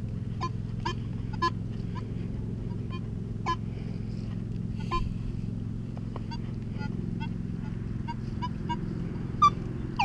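Nokta Makro Legend metal detector giving many short, irregular beeps as its coil sweeps the grass, over a steady low hum. One beep near the end is louder than the rest.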